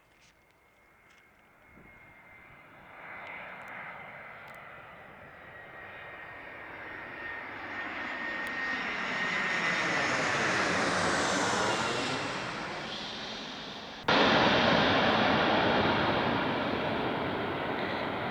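Airbus A321 jet airliner coming in to land and flying past, its engine whine and roar building from faint to loud, with a high whine sliding slightly lower in pitch as it passes. About fourteen seconds in the sound abruptly jumps louder and stays loud.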